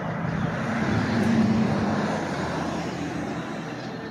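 A motor vehicle engine running steadily, growing louder about a second in and then easing off.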